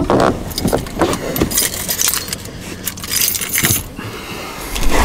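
A bunch of keys on a keyring jingling and clinking in irregular bursts, with two longer jingles around the middle.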